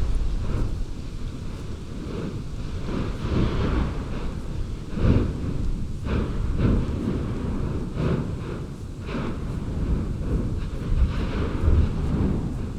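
Gusty wind buffeting the microphone, heard as a continuous low rumbling roar that swells and eases every second or so.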